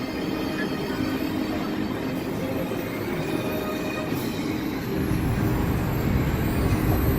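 Amusement-park ride car rolling on its track: a steady rumble with a few thin tones over it, growing louder and deeper about five seconds in.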